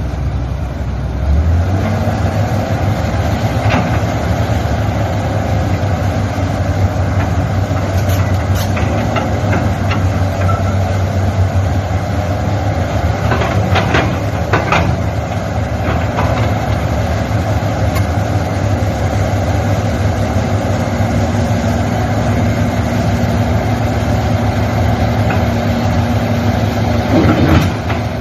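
Heavy diesel engine running steadily, picking up speed about a second in and holding there, with a few metallic clanks near the middle.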